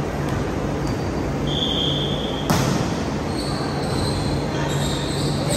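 Volleyball serve in a gym: a short steady whistle blast, then a sharp slap of a hand striking the ball about two and a half seconds in, followed by several short sneaker squeaks on the hardwood court over a steady hall din.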